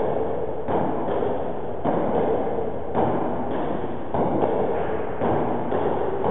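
Table tennis rally: a celluloid ball knocking back and forth off the bats and bouncing on the table in repeated light hits, over steady background noise.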